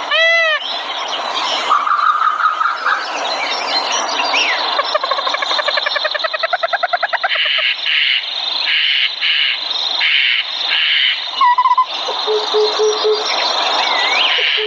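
Several caged songbirds singing at once: overlapping chirps, a fast trill, rows of short repeated notes and brief whistles, over a thin steady high tone.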